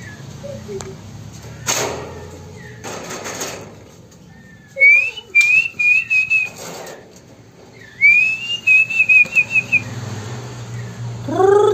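Juvenile white-rumped shama giving two whistled phrases, each a rising note followed by a quick run of wavering notes. Two short bursts of wing flapping come in the first few seconds, and a falling call near the end.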